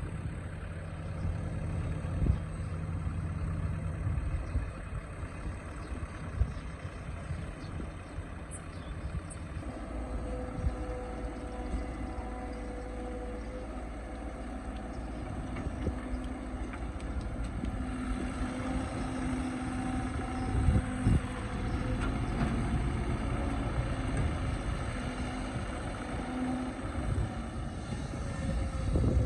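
Excavator's diesel engine running steadily under work, with a steady hydraulic whine joining about a third of the way in and a few sharp knocks later on.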